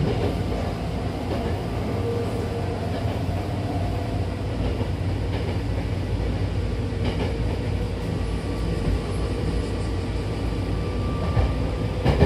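Hankyu Takarazuka Line commuter train running at speed, heard from inside the car: a steady rumble of wheels on rail with a faint steady whine and a few light clicks.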